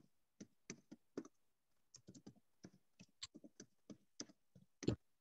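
Faint keystrokes on a computer keyboard as a line of text is typed, in an uneven run of single clicks with the loudest near the end.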